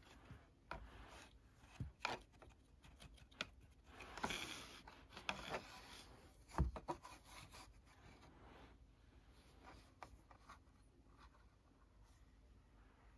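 Scratchy rubbing and light tapping on a cardboard tissue box as a toy wand is pushed through holes cut in it and a cat paws at the box, with one louder knock a little past halfway. The noise thins out over the last few seconds.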